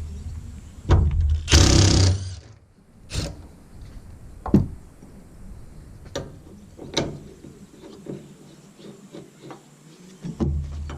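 Hand tools working on a pickup's tailgate hardware: a short rattling burst about one and a half seconds in, then scattered clicks and knocks of metal tools and parts.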